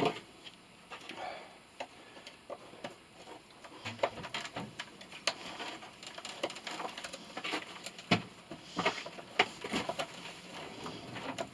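Scattered light clicks and knocks of metal scrap and hand tools being handled, with a few sharper knocks spread through.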